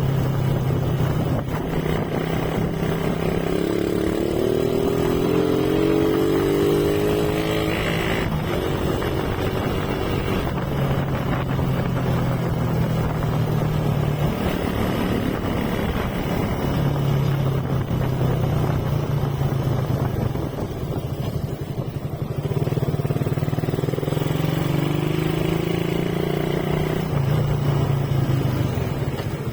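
Motorcycle engine running under way, with a steady hum that rises in pitch twice as the rider accelerates, once early and once near the end.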